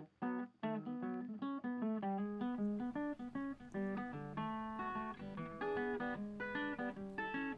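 Background music: a guitar picking out a melody in short plucked notes.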